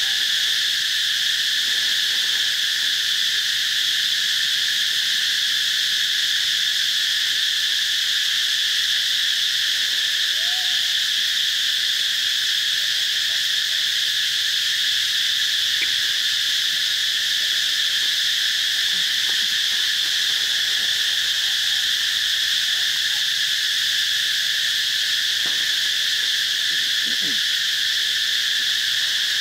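A steady chorus of insects: a continuous high buzzing drone that holds unchanged throughout.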